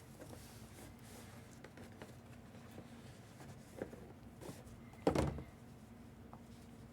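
Light handling of boxed packaging: scattered small clicks and taps, with one louder thump about five seconds in.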